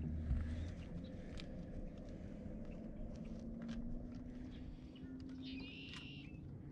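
Light clicks and knocks of gear being handled in a small aluminum fishing boat, over a steady low rumble. About five and a half seconds in there is a short electronic beep from a handheld digital fish scale.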